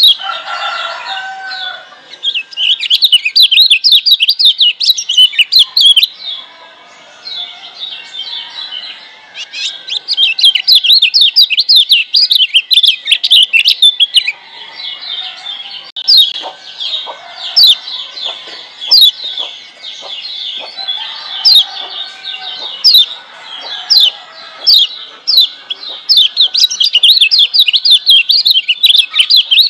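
Kecial kuning (Lombok yellow white-eye) singing: fast, chattering runs of high, rapidly repeated down-slurred notes in phrases a few seconds long, with short pauses between. This is a master song recording used to train caged birds to sing. A brief lower call sounds at the very start.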